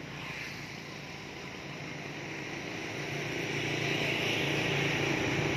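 A motor vehicle on the road approaching, its engine sound growing steadily louder.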